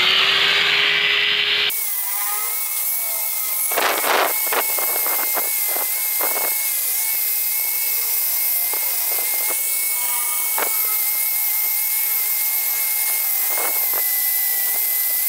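Angle grinder running with a steady high whine, its disc touching the edge of a brass boat propeller blade in several short bursts of grinding.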